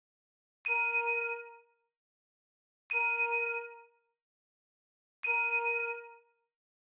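A bell-like metallic ding sound effect, struck three times about two seconds apart, each strike ringing out and fading over about a second.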